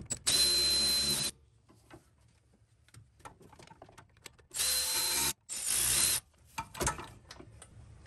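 Milwaukee cordless electric ratchet with a deep 10 mm socket, running in three short bursts with a steady high whine as it zips off small 10 mm nuts. One burst of about a second comes right at the start, then two shorter bursts back to back about halfway through, with faint clicks of handling between.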